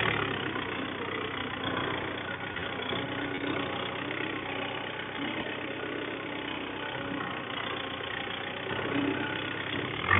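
Mahindra Yuvo 575 DI tractor's four-cylinder diesel engine running steadily as the tractor is driven over ploughed soil.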